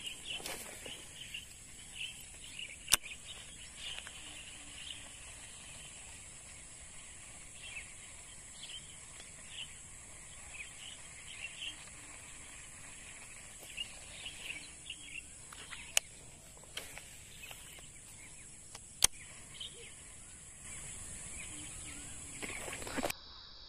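Swamp ambience: a steady, high-pitched insect drone with many short bird chirps scattered through it. Three sharp clicks stand out, one about three seconds in and two more past the middle. The drone changes pitch abruptly near the end.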